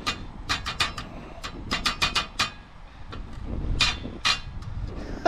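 Garlic butter spitting and crackling on the hot grill plate of a portable gas camping stove: an irregular run of sharp pops, over a low wind rumble on the microphone.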